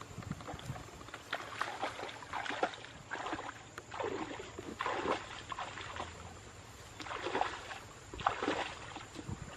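Water splashing and sloshing in repeated bursts, roughly one a second, with some bursts stronger than others.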